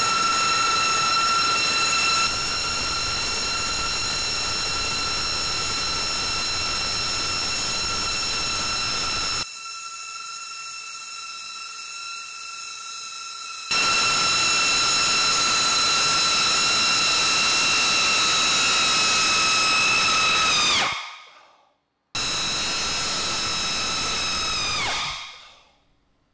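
Four counter-rotating propellers of an RC car held against a ceiling by their thrust, running at high speed as a loud, steady high-pitched whine with many overtones. Near the end they spin down with falling pitch, twice.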